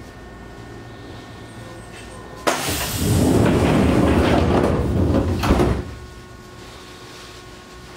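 Train passenger doors closing: a sudden loud rush of air about two and a half seconds in, with the rumble of the sliding door panels, lasting about three seconds and ending with a couple of knocks as they shut. A faint steady hum from the stopped train runs under it.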